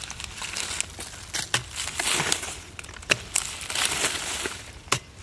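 Metal pipe digging into hard, dry cracked pond mud: several sharp knocks of the pipe striking the clay, with rough crunching and scraping as clods break loose and crumble.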